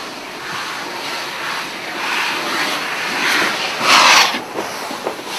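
LNER B1 steam locomotive getting under way, steam hissing from its open cylinder drain cocks with gusts of exhaust; the loudest blast of hiss comes about four seconds in.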